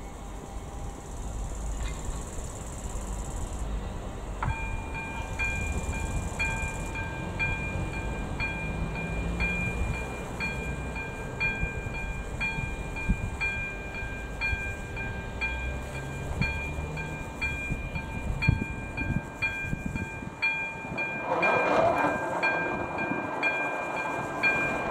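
Level-crossing warning bell (AŽD ZV02 electronic ringer) starting up about a fifth of the way in and striking a little faster than once a second, a bright multi-tone ding as the crossing is activated for an approaching train. A louder noisy burst joins it near the end, while the barrier arms come down.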